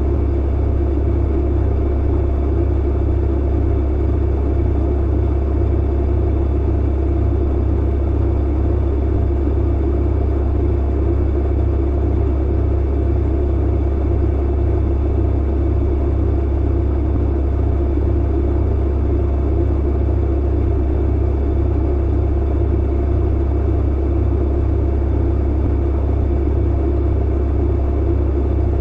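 Clothes dryer running steadily: a deep, even hum under a constant rushing noise.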